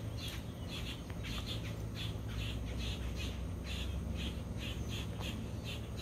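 Rhythmic high-pitched chirping from birds or insects, about two or three chirps a second, over a low steady hum.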